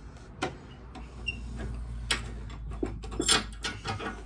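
Scattered knocks and metallic clicks as an old steel panel radiator is handled and shifted on its wall brackets, with the loudest clatter about three seconds in. A steady low hum runs underneath.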